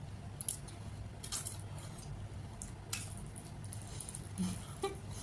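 Close-up eating sounds of rice and red kidney bean curry being eaten by hand: wet, squishy mixing and chewing with scattered short smacks, over a low steady hum.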